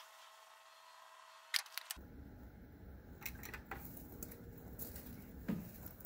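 Fire burning through a microwave oven's shell, crackling and popping. A few sharp pops come about a second and a half in, then a low rumble joins under scattered crackles from about two seconds in.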